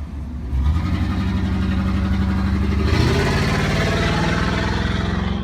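Motor vehicle engine running steadily, then rising in pitch as it accelerates about three seconds in, with road and wind noise building.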